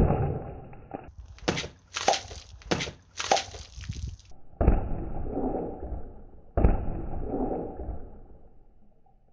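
A knife slashing through liquid-filled juice cartons, with juice gushing and splashing. A few sharp cutting strokes come in the first half. Then two heavy hits, each followed by about two seconds of splashing liquid.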